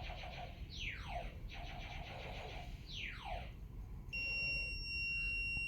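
Multimeter continuity beep: a steady high-pitched tone lasting about two seconds, starting about four seconds in, as the probes bridge the new glass defrost heater's element — the sign that the heater is not open.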